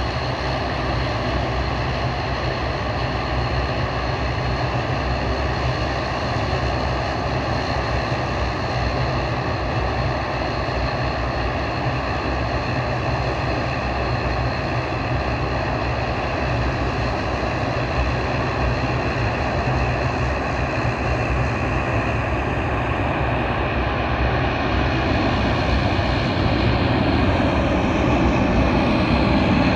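Boeing 737-800 on final approach, the jet noise of its twin CFM56 turbofans a steady rumble and whine. It grows louder over the last few seconds as the airliner draws near.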